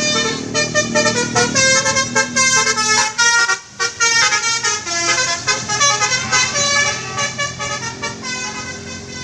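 Tour bus's telolet basuri multi-trumpet horn playing a quick melody of changing notes. There is a short break about three and a half seconds in, then the tune carries on.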